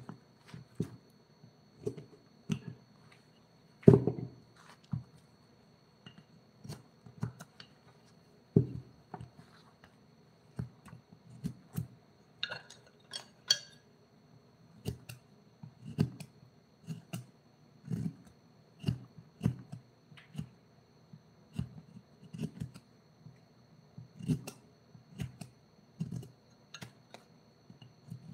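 Hand carving tools knocking on wood in irregular light taps, one or two a second, with one louder knock about four seconds in and a short run of sharper clicks about halfway through.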